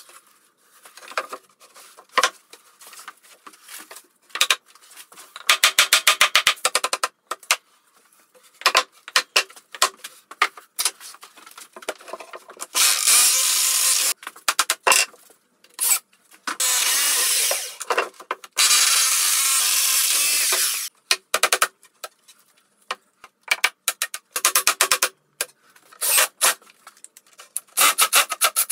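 Power drill running in three steady bursts of a second or two each, about halfway through, with knocks and rattles from handling the plywood cabinet before and after.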